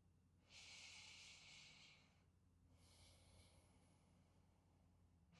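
Near silence, with two faint breaths: a longer one starting about half a second in, and a shorter, fainter one around three seconds.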